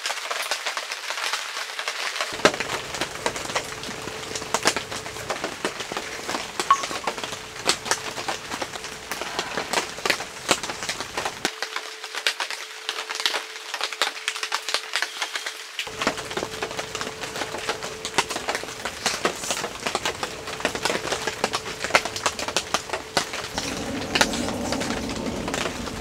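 Rain pattering on tent fabric: a dense, irregular patter of sharp drop taps.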